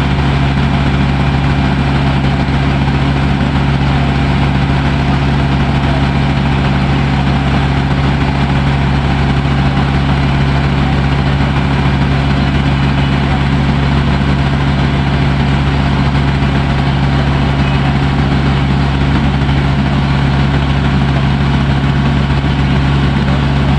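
Water taxi's engine running steadily at a constant speed, a loud unchanging drone with a strong low hum.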